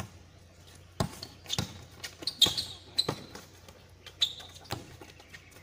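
Basketball bouncing on an outdoor concrete court: a string of irregular sharp thuds, the loudest about two and a half seconds in, with a few short high squeaks in between.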